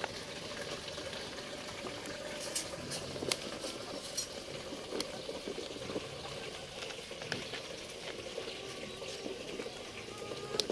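Plastic toy dump truck loaded with gravel rolling over dirt: a steady rustle of its wheels on the ground, with scattered clicks of stones shifting in the bed.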